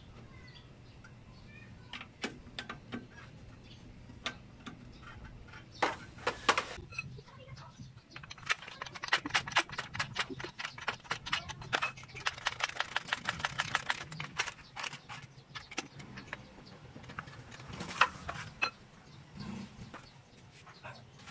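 Hand ratchet wrench clicking in quick, even runs from about eight seconds in as bolts on the gearbox are turned, with scattered metallic clinks and knocks of tools before and after.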